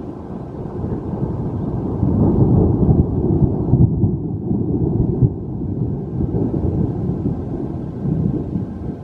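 Rolling thunder from a lightning strike, a deep rumble that builds over the first couple of seconds, peaks in the middle and slowly dies away.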